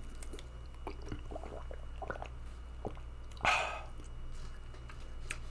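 A man drinking from a small plastic water bottle: soft gulps, swallows and small mouth clicks, with one short breathy rush of sound a little past halfway.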